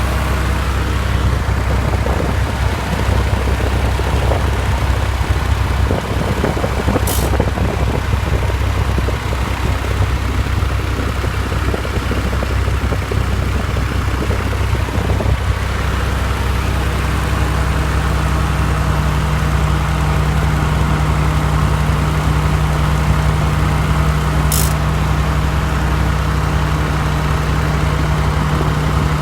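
A 1991 Honda Civic's 1.5L four-cylinder engine idling with its Matsushita AC compressor running and making a rapid ticking, a fault this compressor shows whenever the AC is on. A steady low hum comes in about halfway through.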